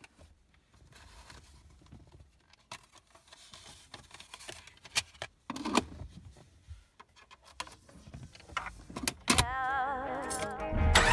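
Car glove box being handled: a run of plastic clicks, knocks and rattles as CD cases are moved and a disc is taken out, with a sharper knock about nine seconds in as the lid shuts. Right after, a wavering, warbling tone comes in, and music starts near the end.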